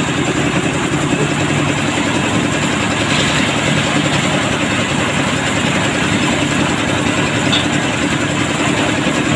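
Engine-driven concrete mixer running steadily with its drum turning, as the drum is tipped by its hand wheel to pour out mixed concrete.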